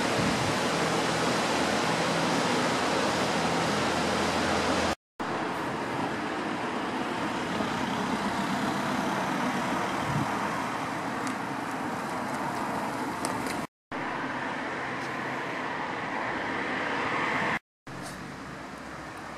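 Outdoor ambience of short video clips joined by hard cuts: steady wind-like rushing, then road traffic with cars passing, then a quieter stretch. Each cut drops the sound out completely for a moment.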